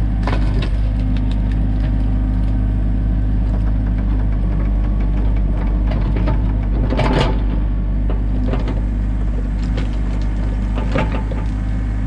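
Komatsu excavator's diesel engine running steadily while it backfills a trench, with a few clunks and scrapes of rocks and soil under the bucket, the loudest about seven seconds in and another near eleven seconds.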